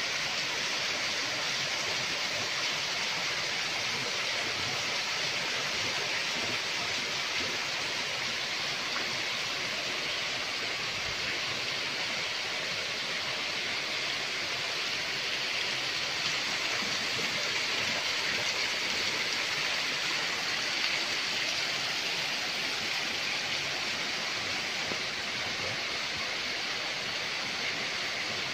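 Small waterfall cascading over rocks into a pond: a steady, unbroken rush of falling water, brightest in its upper hiss.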